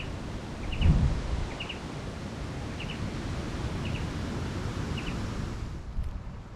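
A small bird repeating a short, high double chirp about once a second over a steady rushing hiss of outdoor noise, with one low thump about a second in; the hiss cuts off near the end.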